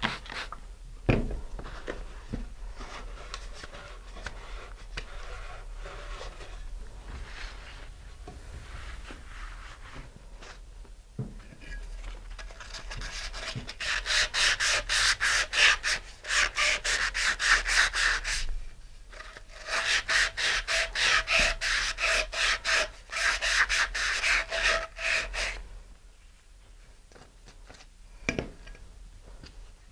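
Sandpaper scuffing a fiberglass rocket tube by hand: two long runs of quick back-and-forth rasping strokes about halfway through, after a stretch of quieter rubbing and wiping. The scuffing roughens the slick fiberglass so epoxy can grip it.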